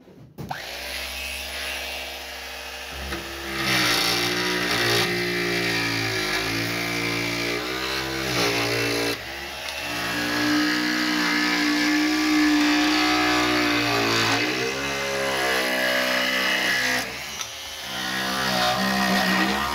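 Vintage East German electric jigsaw cutting curves through thin plywood on a test cut after its repair. The motor starts about half a second in and runs with a reciprocating blade rasp. Its pitch sags and recovers several times as the blade bites into the turns.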